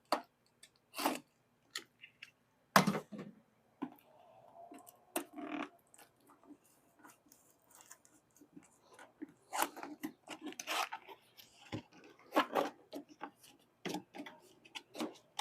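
Cardboard packaging being handled and pulled off a small steel mini tool box: scattered rustling, scraping and crinkling with a few sharp clicks and knocks, in short bursts with pauses between.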